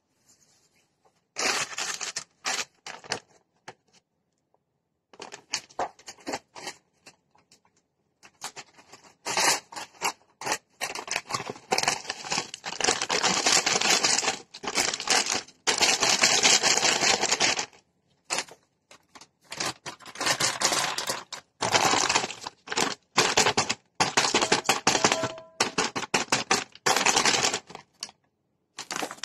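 Dry crinkling and rustling of plastic packaging and dried seaweed being handled over the pot of rice, coming in bursts with short pauses and loudest and most continuous in the middle stretch.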